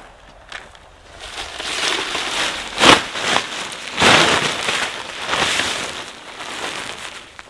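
Nylon fabric of a Naturehike Canyon one-person pop-up tent rustling and flapping in surges as it is shaken out and unfurled, with a sharp snap about three seconds in.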